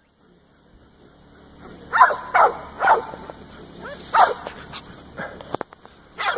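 A dog barking: a series of short barks that fall in pitch, starting about two seconds in, with another bark near the end.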